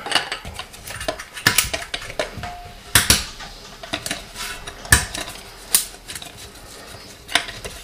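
Irregular sharp clicks and clinks, a second or two apart, as a small supplied wrench turns the stainless steel nuts on a toilet's tank bolts; the loudest come about three and five seconds in.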